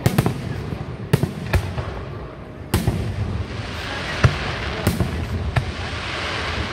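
Aerial firework shells bursting overhead: a string of sharp bangs, roughly one a second, with a dense crackling hiss of crackle stars building from about halfway through.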